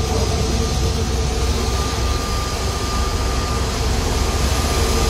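Steady vehicle cabin noise inside an airport shuttle bus: a low engine rumble and hiss with a thin steady whine over it.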